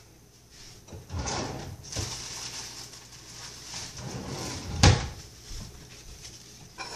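Kitchen drawers and cupboards being opened and rummaged through, with irregular rustling and clatter and one sharp knock about five seconds in.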